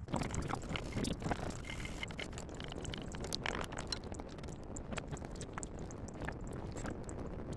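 Brake hardware being cleaned during a pad change: a continuous noisy hiss with many small clicks and scrapes.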